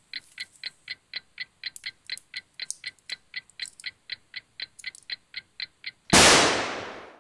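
Mechanical alarm clock ticking evenly, about four ticks a second. About six seconds in, a single loud pistol shot that dies away over about a second.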